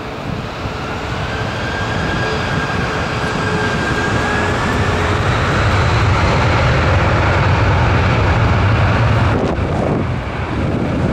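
Boeing 767-300's twin jet engines spooling up to takeoff thrust, heard from behind the aircraft: a deep rumble that grows louder over the first six seconds or so, with steady high whines on top. The sound dips briefly near the end.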